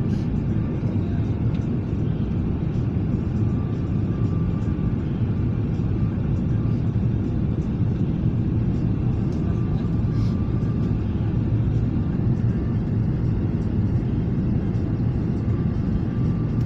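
Steady low rumble of an airliner's jet engines and rushing air, heard inside the cabin at a window seat over the wing, in low flight with the flaps extended.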